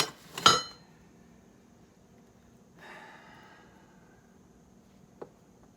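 Two sharp metal clanks with a brief ring, half a second apart, from a pry bar striking the air compressor's metal housing. A soft breathy exhale follows about three seconds in, and there is a single small click near the end.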